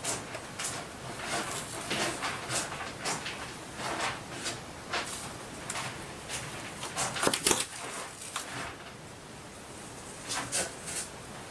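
Cats scrabbling and bumping about on a carpeted cat tree and its mesh net: irregular soft knocks and rustles, with a louder cluster of knocks about seven seconds in.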